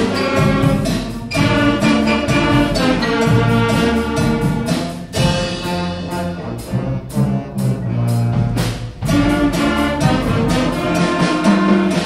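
A primary-school concert band playing an easy straight-ahead rock chart on a blues progression: brass and wind instruments sustaining notes over a steady drum beat.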